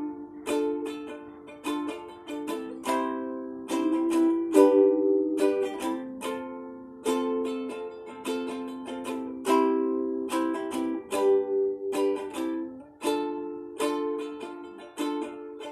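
Strummed chords on a plucked string instrument, each chord ringing and dying away before the next, with no deep bass notes.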